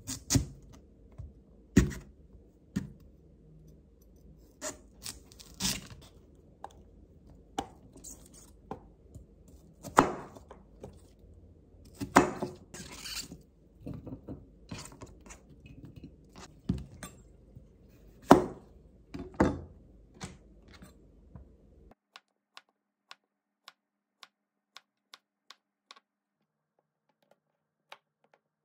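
Irregular sharp knocks, taps and scrapes of things being handled, several of them loud. Near the end the background drops away, leaving only faint ticks at an even pace.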